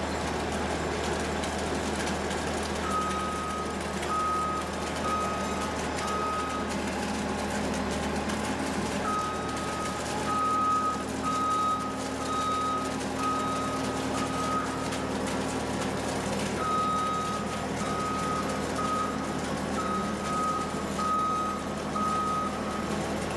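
Skid steer's engine running steadily while its reversing alarm beeps about once a second, in three runs of beeps with short pauses between them.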